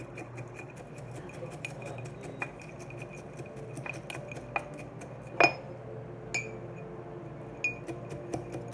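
A utensil clinking and knocking against a dish while biscuits are crushed into fine crumbs: many light, irregular clicks, with one sharper knock about five and a half seconds in.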